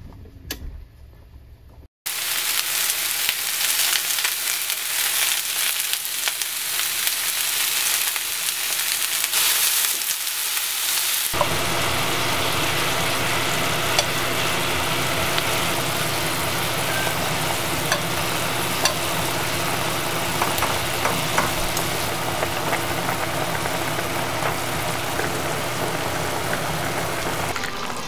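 Chicken wings sizzling as they fry in a pan and are turned with chopsticks, while a soy sauce, sake and sugar mixture comes to the boil in a pot beside them. It opens with a brief quieter stretch, then the loud, even sizzle comes in suddenly. About a third of the way in, a steady low hum joins it.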